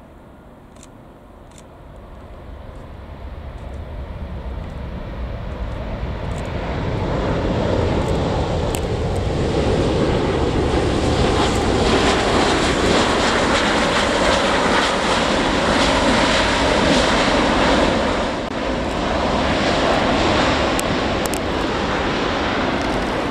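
The Airbus A350-900's Rolls-Royce Trent XWB jet engines during the landing rollout after touchdown. The jet noise builds over several seconds to a loud, steady rush, dips briefly, then carries on.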